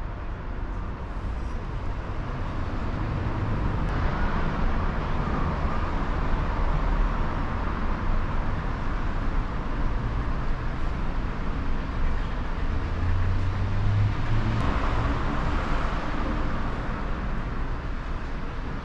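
Road traffic: a steady wash of passing vehicles that swells twice, about four seconds in and again about fifteen seconds in, with a low engine rumble just before the second swell.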